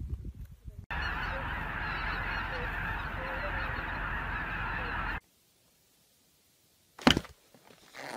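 A large flock of geese in flight, a dense, continuous chorus of many overlapping honking calls for about four seconds that cuts off abruptly. A short, loud sound follows near the end.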